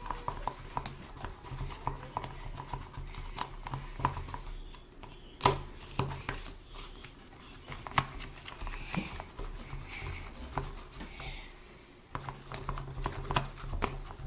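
Mixing stick stirring glue for slime, with irregular small clicks, taps and scrapes of the stick against the container, over a low steady hum that drops out near the end.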